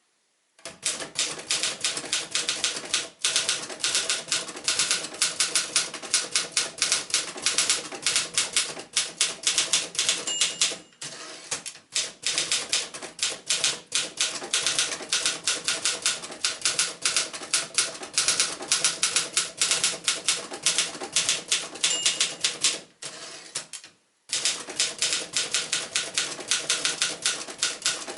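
1965 Remington Mark II manual typewriter (a rebadged Torpedo 18) being typed on steadily, a fast run of sharp key and typebar strikes. The typing pauses briefly twice, and a short ringing tone sounds twice.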